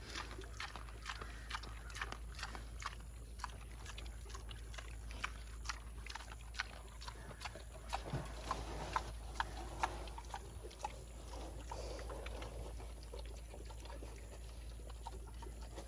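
Hereford piglets rooting and feeding in a dirt pen: a steady scatter of small sharp clicks and crunches, with a few soft pig grunts in the middle.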